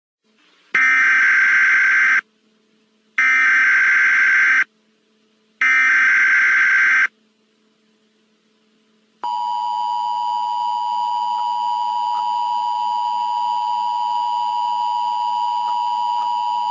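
Emergency Alert System tones: the SAME digital header, sent as three identical bursts of data tones about a second and a half each, then the two-tone EAS attention signal. The attention signal starts about nine seconds in as a steady dual-tone buzz and holds for about eight seconds, announcing the alert message to follow.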